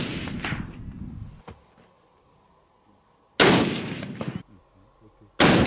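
Hunting rifle shots fired from a shooting bench while sighting in: one sharp shot about three and a half seconds in and another just before the end, each followed by a rolling echo that fades over about a second. The echo of an earlier shot trails off at the start.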